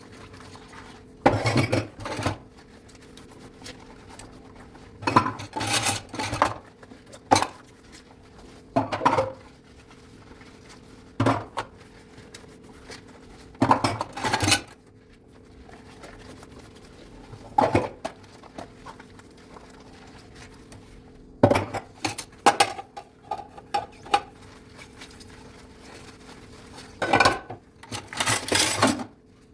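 Dishes and cutlery clattering and clinking as they are handled and stacked while washing up by hand, in short bursts every few seconds. A faint steady hum runs underneath.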